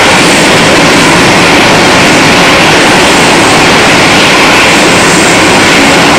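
Boeing 747-230F freighter's four jet engines on landing approach, a loud, steady, even noise that holds without change. It comes in abruptly just before, after silence.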